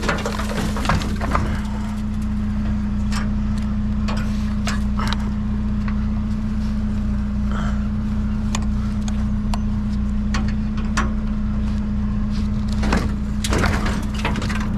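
Vehicle engine idling steadily, with scattered light knocks and clatters over it.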